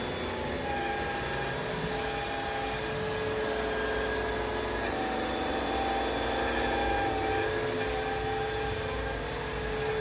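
ILIFE W90 cordless wet/dry hard-floor vacuum running as its cleaning head is pushed over a wooden floor: a steady motor whine over a rushing hiss, with a fainter higher tone coming and going every second or two.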